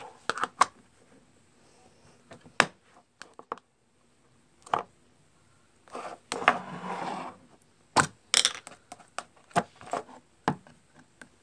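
Plastic slime cups and tubs being handled and set down on a wooden table: scattered sharp taps and knocks, with a longer stretch of rustling handling noise about six seconds in.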